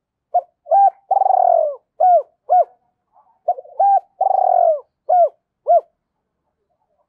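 Spotted dove cooing: two full calls about three seconds apart, each made of a couple of short coos, a longer, rougher middle coo, then two more short coos.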